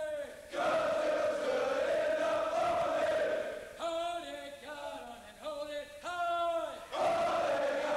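Call-and-response marching cadence of male voices: a massed group chants a line in unison, a single lead voice sings the next line in two phrases, and the group answers again near the end.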